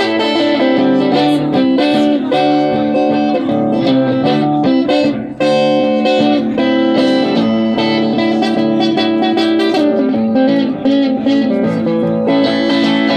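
Instrumental blues passage on acoustic guitar: picked and strummed guitar lines with no singing.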